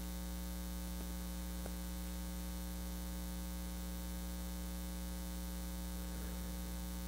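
Steady electrical mains hum, a low buzz with a row of higher overtones, with two faint ticks about a second in.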